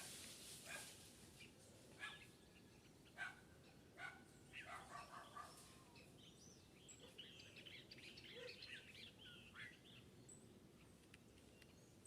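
Near silence with faint, scattered bird chirps and a few soft clicks.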